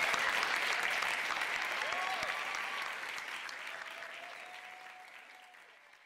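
Audience applause at the close of a live music track, fading out steadily.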